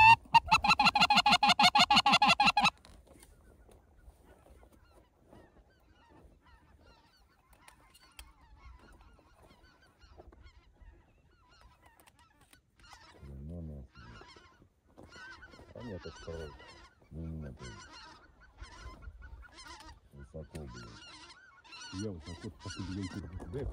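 Goose honking: a loud run of rapid, buzzy calls for the first three seconds or so, then quiet, then short honks again and again from about halfway on.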